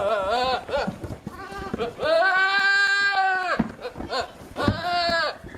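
Goat bleating in answer to questions, four calls: a short wavering bleat at the start, a brief one, a long drawn-out bleat in the middle, and a short one near the end.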